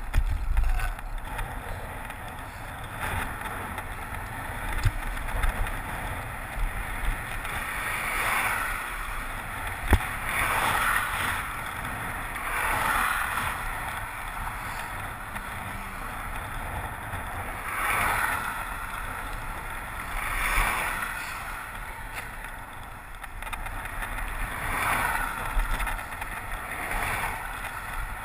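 Wind rumbling on the microphone of a handlebar-mounted action camera on a moving bicycle, under a steady road noise. Several passing vehicles are heard one after another, each a hiss that swells and fades over a second or two.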